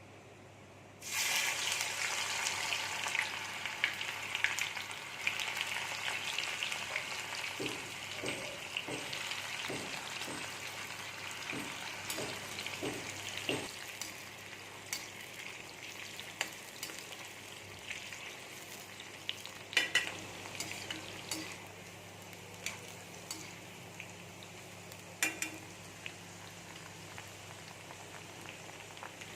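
Food hitting hot oil in a pan, sizzling suddenly about a second in, the sizzle then slowly dying down. A spatula stirs and knocks against the pan now and then.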